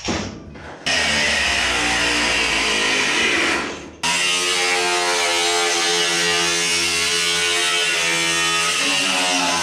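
Angle grinder cutting a metal flange off a frame rail, running steadily from about a second in. It stops briefly just before the midpoint, then cuts again.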